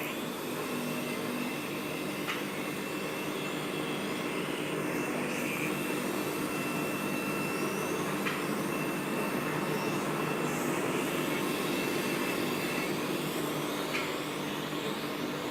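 CNC wood lathe running steadily: a continuous mechanical whir with a faint high whine over it and a few light ticks.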